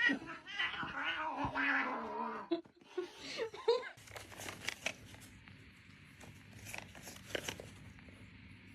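A domestic cat yowling in a long wavering call, then a few short meows around three to four seconds in; after that only faint short sounds over a low steady hum.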